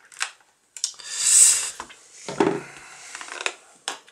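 Screwdriver prying and scraping at a trading-card starter deck's packaging: scattered clicks, a loud hissing scrape about a second in, a knock about halfway through and more clicks near the end.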